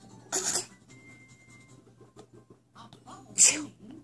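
Two short, breathy pretend sneezes, one about a third of a second in and another near the end.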